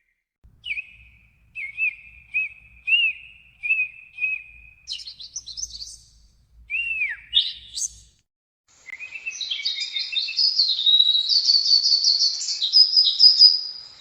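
Songbirds chirping: a run of short whistled chirps, a high quick trill and a down-slurred whistle, then, after a pause of about a second, a fast continuous twittering song.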